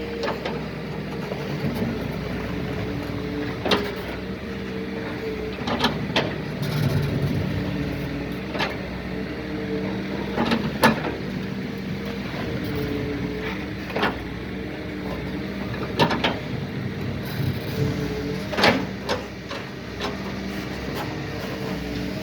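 Doosan DX140 excavator's diesel engine and hydraulics running steadily while it works loading a trolley, the engine note shifting slightly, with about a dozen sharp knocks at irregular intervals.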